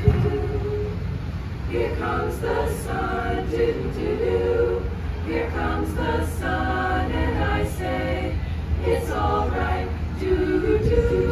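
Female treble choir singing a cappella, several voice parts in harmony, over a steady low hum.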